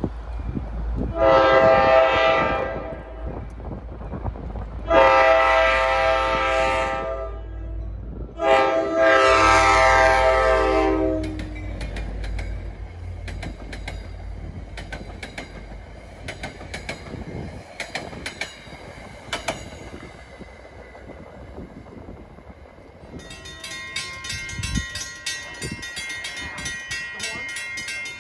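NJ Transit passenger train sounding its multi-tone air horn in three long blasts, the last one falling in pitch as the train goes by, then the wheels clicking over the rail joints as the coaches pass. Near the end a steady repeating ringing starts.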